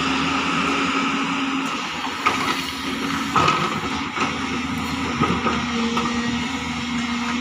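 JCB tracked excavator's diesel engine running steadily under load as the arm swings down and the bucket digs into earth, with a few clanks and knocks of the bucket and rock about two, three and a half, and five seconds in.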